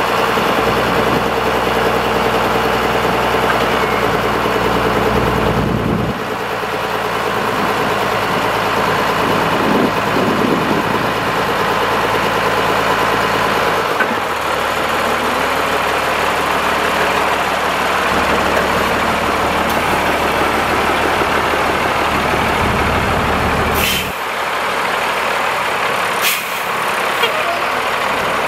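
A 1991 Capacity yard mule's engine running steadily, its note shifting a few times. Near the end come two short hisses of air.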